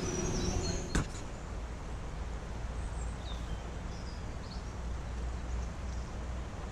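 Steady rushing of a flowing river with low wind rumble on the microphone, a few faint bird chirps over it, and a brief click about a second in.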